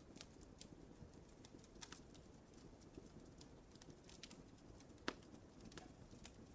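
Fireplace fire crackling softly, with scattered small pops and one louder pop about five seconds in.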